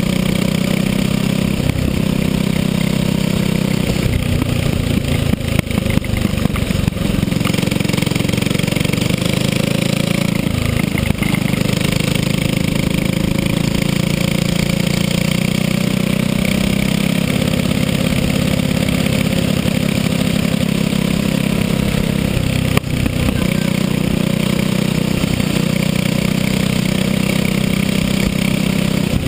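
Racing kart engine running hard on board the kart, its note rising and falling slightly with engine speed, with a brief dip about ten seconds in.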